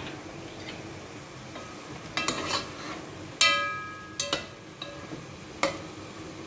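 Metal spoon stirring chunks of beef and tomato in sauce in a granite-coated pot, with several clinks against the pot that ring briefly. The loudest clink comes about three and a half seconds in. A faint sizzle of the sauce runs underneath.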